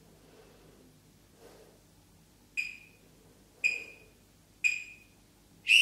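Workout interval timer counting down: three short beeps about a second apart, then a longer, louder beep near the end marking the end of the interval.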